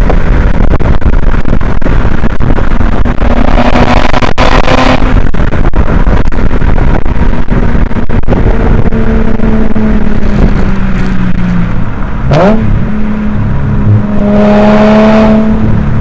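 Subaru Legacy 3.0R Spec.B's EZ30R flat-six running through a muffler-delete exhaust while driving, with heavy wind buffeting overloading the microphone. About twelve seconds in the revs sag and then jump sharply, and the engine note climbs again near the end.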